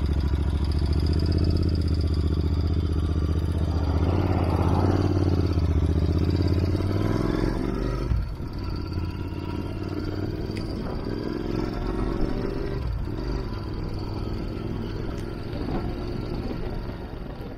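Royal Enfield Interceptor 650's parallel-twin engine through Enfield Precision aftermarket silencers. It idles, then revs up as the bike pulls away and climbs in pitch through the gears, with a short dip at the shifts about 8 and 13 seconds in.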